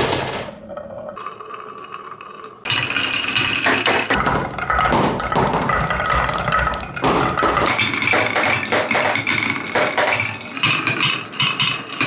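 Marbles rolling and clattering down a marble run built on metal cans: a dense stream of quick taps with ringing metallic tones at several pitches. It is sparse at first and gets busy about two and a half seconds in.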